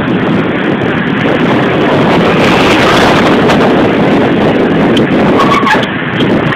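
Loud, steady rush of wind buffeting a phone microphone, mixed with road and traffic noise from a moving vehicle.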